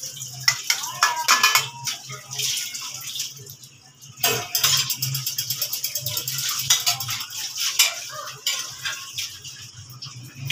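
Steel dishes and utensils clinking and rattling as they are washed and stacked at a sink, with the tap running in stretches. A quick dense rattle comes just after the middle, and a low steady hum runs underneath.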